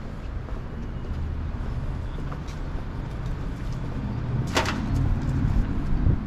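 Low, steady rumble of city street traffic, with a single sharp click about four and a half seconds in.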